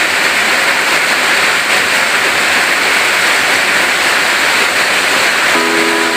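Heavy rain pouring steadily, a dense even hiss close to the microphone. Near the end a steady pitched tone with several notes sets in.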